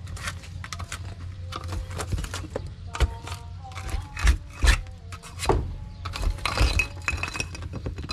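Loose stones and broken concrete knocking and clinking as they are poked and shifted with a thin metal rod, in an uneven string of sharp knocks with a few louder ones about halfway through.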